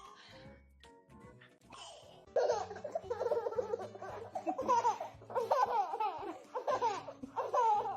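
A baby laughing in repeated bursts of giggles starting about two and a half seconds in, over background music.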